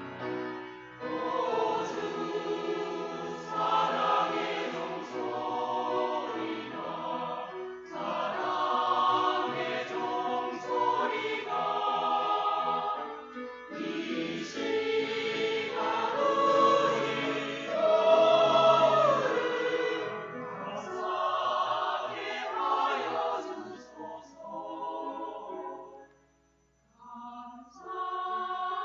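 A church choir singing a hymn in long sung phrases, with a brief pause near the end before the next phrase comes in.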